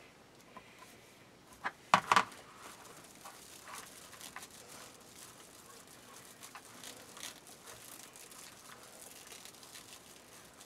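Plastic deco mesh rustling and crinkling as it is scrunched and twisted by hand onto a wire wreath frame, with a few sharp clicks about two seconds in.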